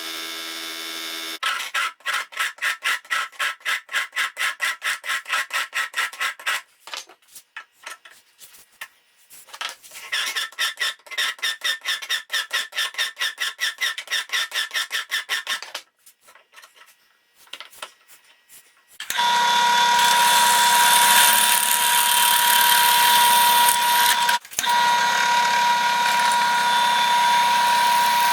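Power drill at work: two stretches of rapid, even pulsing, about five a second. Then, from about two-thirds of the way in, the tool runs loud and steady with a strong whine, briefly interrupted once.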